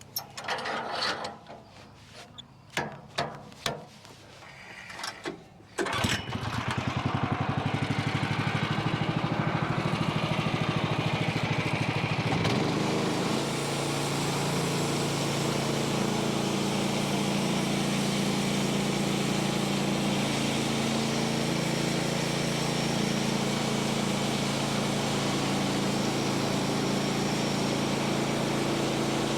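A few knocks and clicks, then about six seconds in a small engine starts and runs. About twelve seconds in it settles into a steady run that lasts to the end.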